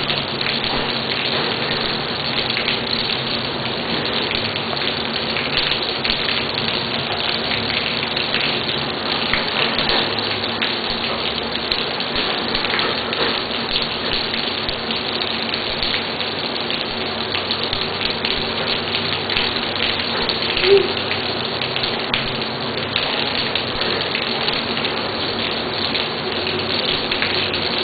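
Rain falling steadily, a dense even patter of many individual drops striking. About 21 seconds in there is one brief pitched sound.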